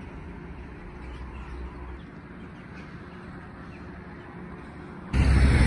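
Faint, even background noise with a low steady hum. A little after five seconds in, it cuts abruptly to loud, steady road-traffic noise.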